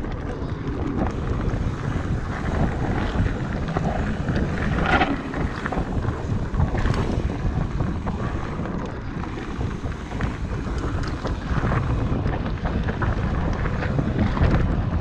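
Wind buffeting the microphone of a bike-mounted action camera while riding a mountain bike down dirt singletrack, with steady tyre rumble and scattered clicks and rattles from the bike over the rough trail.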